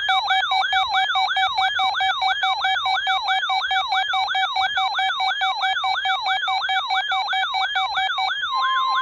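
Weather radio alert tones for a required weekly test: a siren-like sweep rising over and over, about three to four times a second, over a rapid steady beeping. Near the end the beeping stops and a steady single tone, the 1050 Hz weather radio alarm tone, comes in under the sweeps.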